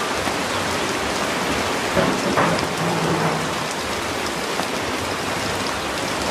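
Steady rain falling on banana leaves and wet ground: an even hiss of drops.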